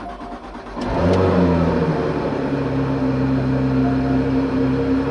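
Porsche 911 GT3 (991) flat-six cold-starting, heard from inside the closed cabin. It cranks briefly, catches about a second in with a flare of revs, then settles into a loud, steady fast idle. The aftermarket RSS centre-section exhaust has its valves disconnected and held open, which makes it extremely loud at low rpm.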